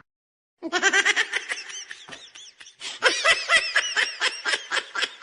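High-pitched laughter starting about a second in: rapid repeated bursts of 'ha' sounds, about four or five a second, easing briefly before picking up again.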